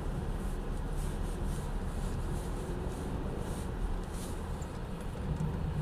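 Cabin sound of an early-2000s Mercedes S430 driving on snow: a steady low drone of the V8 and the tyres as the car brakes and slides without stopping, with faint high clicks here and there.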